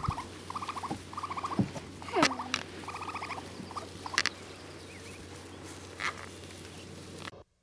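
Baby raccoons trilling as they scamper after a person: several short bursts of rapid chittering, with one louder falling cry a little after two seconds in. The sound cuts off suddenly near the end.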